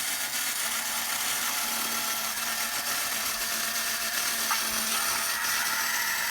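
Battery-powered remote-control tin robot toy running, its small electric motor and gearbox whirring steadily.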